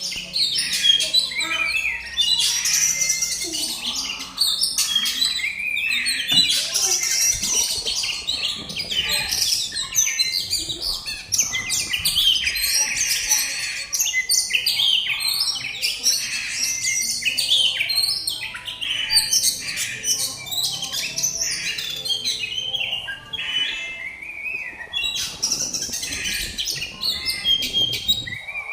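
An Oriental magpie-robin (kacer) singing full song almost without pause: a loud, varied stream of whistles, trills and chirps.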